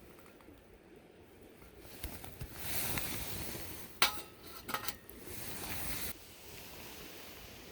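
Stainless steel camp dishes clinking: one sharp metallic clink with a brief ring about four seconds in, then a few lighter knocks, over a steady hiss that stops about six seconds in.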